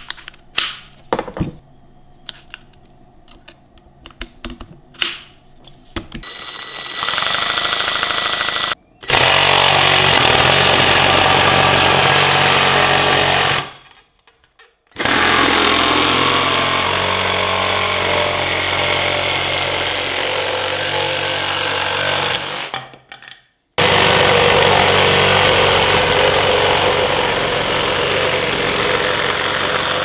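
Clicks and knocks of the sabre-saw attachment being handled and fitted onto a Parkside PKGA 20-Li C2 cordless tool, then the cordless sabre saw running and cutting through a wooden board, loud and steady in three long stretches, each cut off suddenly.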